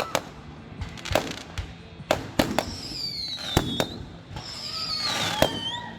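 Fireworks going off: a string of sharp bangs and pops, with two long whistles that fall in pitch, one about two and a half seconds in and one near the end.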